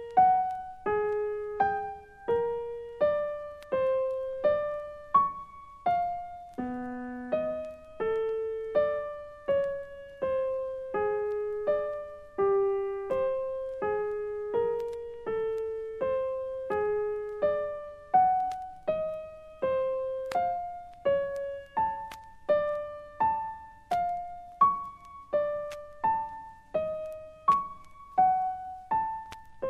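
Solo piano playing a slow, even series of single notes, about one and a half a second, each struck and left to ring and fade. The notes sit mostly in the middle register, with one lower note about seven seconds in.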